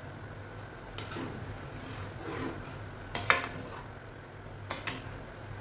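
Metal slotted spatula clinking and scraping against an aluminium cooking pot while stirring broth. A few sharp knocks, the loudest about three seconds in, over a steady low hum.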